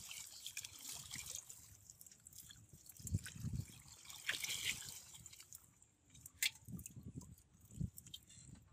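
Shallow water trickling, dripping and sloshing, with scattered small clicks and a few dull thumps.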